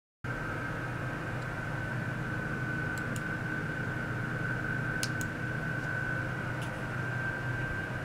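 Steady room hum of a running desktop computer with a high, even whine, broken by a few quick mouse clicks, two pairs around three and five seconds in and one more shortly after.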